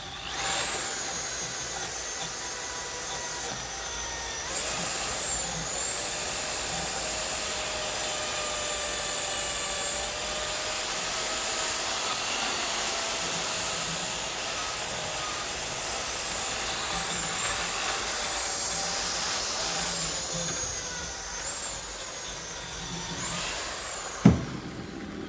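Handheld electric power tool running under load, cleaning dirt off a tractor part. Its motor pitch dips and recovers several times as it is pressed on and eased off, then it winds down near the end, followed by a sharp knock.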